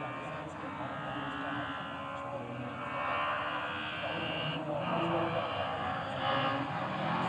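Rally car engine heard from a distance, revving hard with brief lifts between gears and growing louder as the car approaches.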